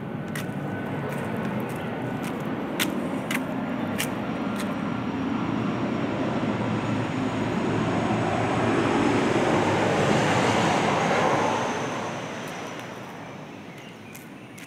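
A vehicle passing by: a rushing engine noise that swells slowly, is loudest a little past the middle, then fades away, with a few sharp clicks as it builds.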